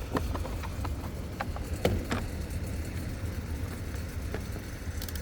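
Scattered light clicks and taps, about seven in all, over a steady low hum.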